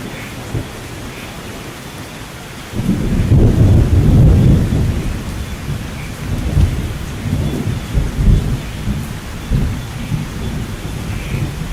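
Steady rain with thunder: a loud, deep rumble breaks in about three seconds in, peaks for a couple of seconds, then rolls on in weaker low surges.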